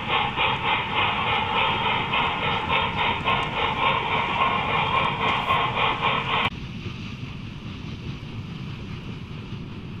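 Rapid rhythmic steam chuffing, several chuffs a second, from the onboard sound system of an HO-scale MTH Erie Triplex model locomotive. It cuts off suddenly partway through, leaving the quieter, steady rumble of model freight cars rolling on the track.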